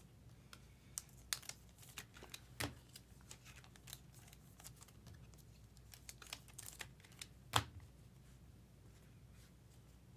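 Trading cards being handled and flipped through: faint scattered clicks and soft slides of card on card, with one sharper click about seven and a half seconds in.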